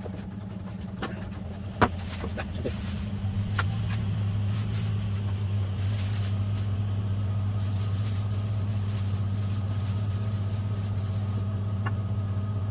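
A steady low motor hum runs throughout. Around it, a basement floor drain's metal grate and sieve container are knocked and scraped on the concrete floor while being cleaned, with a sharp knock about two seconds in. From about halfway on there is a steady rush of water spraying and splashing over the drain.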